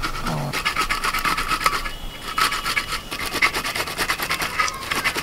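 Grapes rubbed against a metal box grater over a steel plate, grated to pulp to press out their juice: quick repeated scraping strokes, with a short pause about two seconds in.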